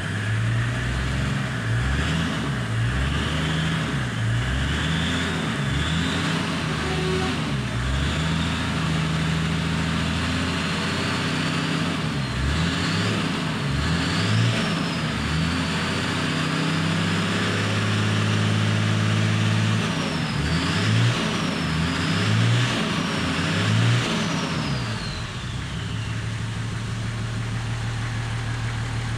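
Toyota 1HZ 4.2-litre inline-six diesel engine, heard from inside the cab, revved up and down repeatedly from idle. About 25 seconds in it settles back to a steady idle.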